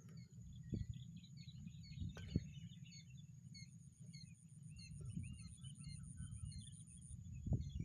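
Small birds chirping with short, scattered calls, over a low rumble, with a high, rapid pulsing trill from about three and a half seconds to about seven seconds in.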